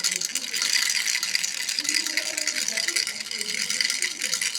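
A baby's toy rattle shaken continuously, giving a steady, dense clatter of rapid clicks.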